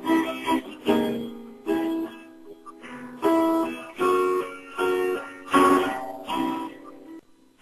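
Acoustic guitar strumming chords in a steady rhythm, with a short break just before the end.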